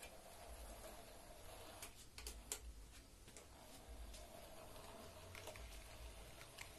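Faint running of a model train locomotive hauling a boxcar: a thin steady motor hum with scattered light clicks of wheels over rail joints and turnouts, the sharpest click about two and a half seconds in.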